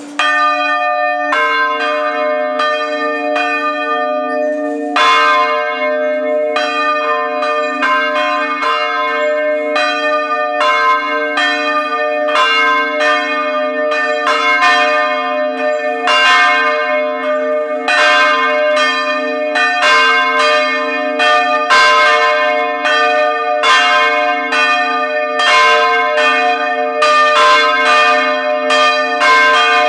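Three large church bells hung from wooden headstocks, rung together and heard up close in the belfry: repeated loud strikes with long overlapping ring. A second bell joins about a second and a half in, and the strikes come thicker toward the end.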